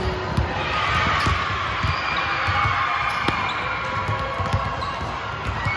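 Basketball being dribbled on a court floor, a run of repeated low thuds.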